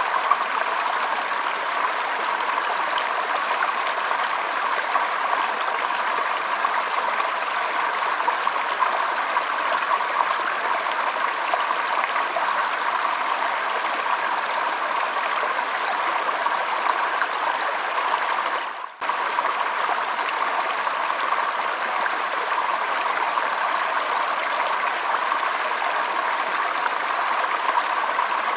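Shallow stream trickling and flowing over its bed, a steady even rush of water. It drops out for a split second about two-thirds of the way through, then carries on unchanged.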